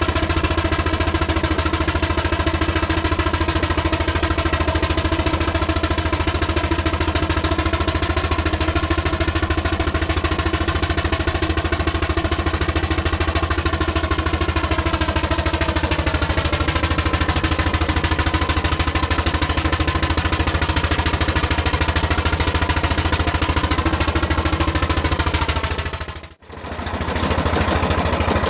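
Engine running steadily with a rapid clattering beat; its pitch sags a little in the middle and rises again near the end. The sound drops out briefly about 26 seconds in.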